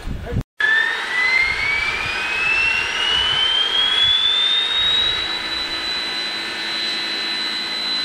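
A steam turbo-generator on narrow-gauge steam locomotive Rio Grande Southern #20 spooling up. Its high whine rises steadily in pitch for about five seconds, then holds at a steady speed. The sound cuts out briefly just before the whine begins.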